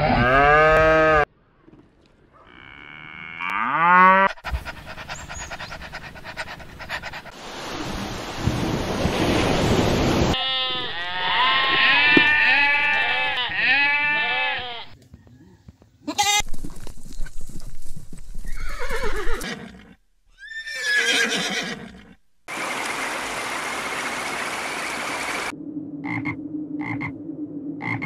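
A run of separate farm-animal recordings. Cattle mooing comes first, then goats bleating in a quick series of short calls around the middle, followed by further animal calls.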